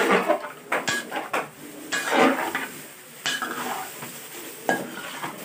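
Metal spatula scraping and clanking against a large aluminium wok as pieces of boiled pork skin are stirred around, in strokes roughly once a second.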